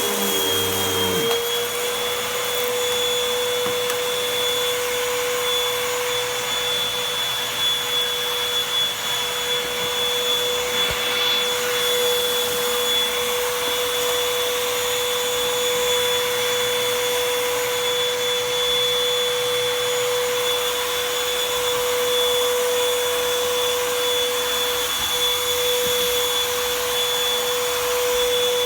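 Vacuum cleaner running steadily while vacuuming up dirt, a constant motor whine over the rush of suction; the whine steps up slightly about a second in.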